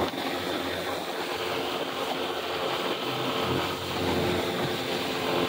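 Mercury 8 hp outboard motor running on a small inflatable boat, mixed with water and wind noise. It drops suddenly to a quieter, lower running level right at the start, and its hum comes back up a little near the end.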